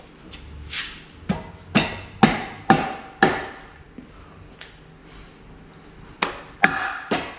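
Hammer blows on metal, each strike ringing briefly: a run of five about half a second apart, a single faint knock, then another quick run of strikes near the end.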